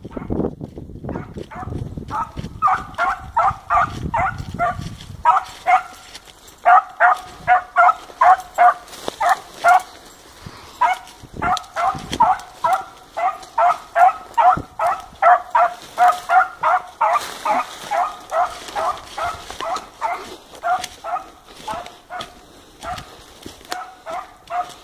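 A dog barking over and over in a fast, steady run of about three barks a second, with a few short breaks.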